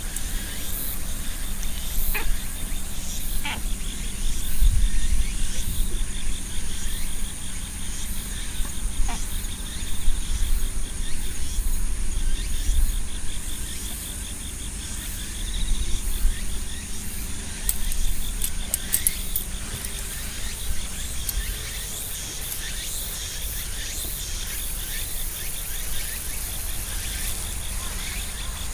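Summer insects chirring steadily, one with a fast, even pulsing call and a thin high buzz above it, over low rumbling noise and a few short chirps.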